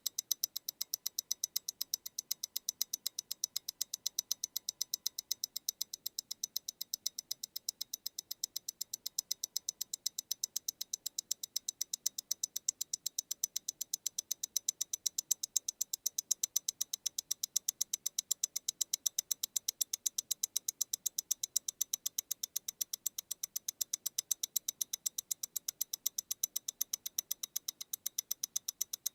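MEMORIGIN Stellar tourbillon mechanical watch ticking steadily, about eight sharp, high-pitched ticks a second from its 28,800-vibrations-per-hour balance.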